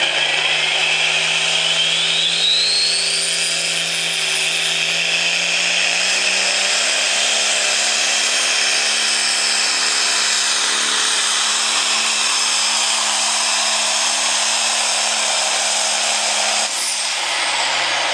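Turbocharged diesel engine of a John Deere limited pro stock pulling tractor at full throttle, dragging the weight sled. A high whistle rises over the first few seconds, the engine note climbs about six seconds in and holds steady, then drops away near the end as the pull finishes.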